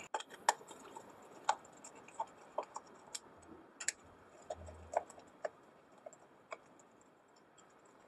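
Phillips screwdriver unscrewing the fixing screws of a wall light-switch plate: a scatter of light, irregular clicks and ticks as the tip works in the screw heads.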